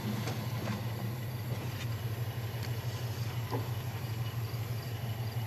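A car engine idling: a steady low hum with no change in pitch.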